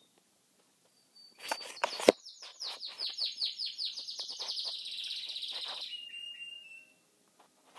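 Domestic canary singing: a burst of loud, sharp notes about a second in, then a fast trill of quickly repeated notes lasting about four seconds, ending on a short held whistle.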